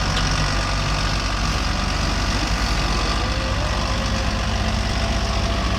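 Diesel tractor engine running steadily at an even speed, with a deep, low hum.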